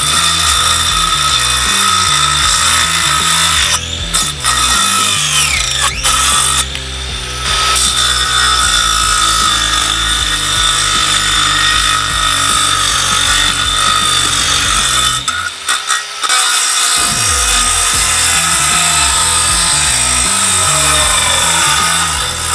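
Angle grinder driving a circular wood saw blade, running with a steady high whine as it cuts through branches and a wooden block, with a brief drop in pitch around five seconds in. Background music with a beat plays underneath.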